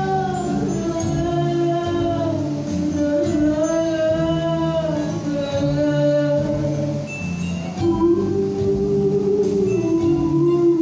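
Singing in long, slowly wavering held notes over musical accompaniment.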